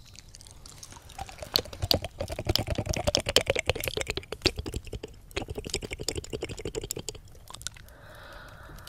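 Wet mouth sounds (licking, smacking and tongue clicks) right against a 3Dio binaural ear microphone, as in ear-eating ASMR. A dense run of quick clicks starts about a second in and thins out to softer sounds near the end.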